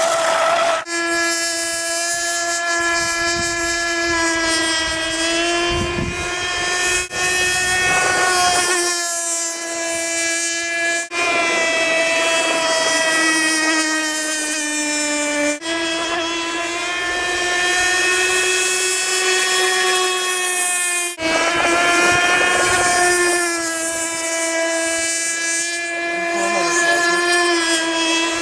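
Electric RC speedboat motor running flat out, a steady high-pitched whine with little change in pitch. The whine breaks off abruptly several times and resumes at a slightly different pitch.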